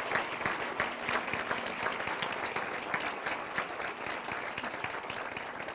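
Audience applauding, many hands clapping steadily and tapering off near the end.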